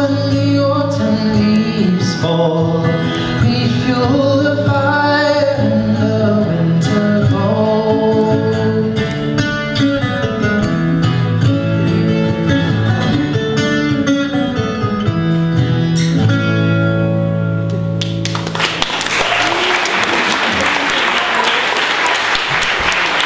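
Live folk song: a man singing with guitar accompaniment. About three-quarters of the way through, the music ends and audience applause takes over.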